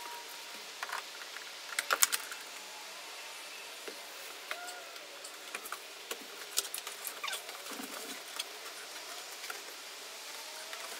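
Scattered small plastic clicks, taps and rustling of gloved hands working at wiring plugs under a car's dashboard, with a cluster of louder knocks about two seconds in.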